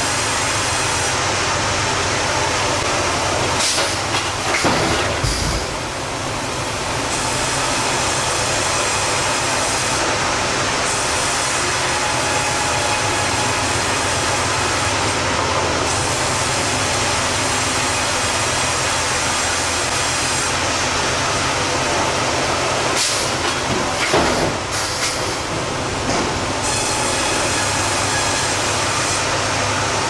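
Sawmill headrig machinery running: a band saw and a Hurdle log carriage handling a log, with a loud, even rumble and hiss. Clusters of knocks and clanks come about four to six seconds in and again about 23 to 25 seconds in.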